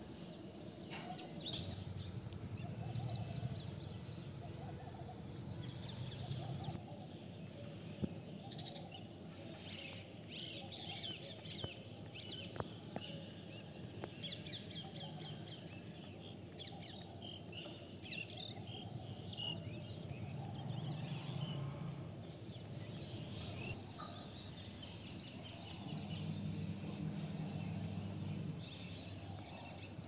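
Small birds chirping and twittering over steady outdoor background noise, with a faint low hum that comes and goes.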